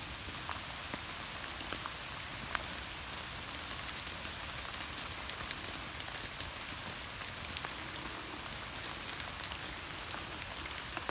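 Fire burning: a steady hiss with scattered faint crackles and ticks.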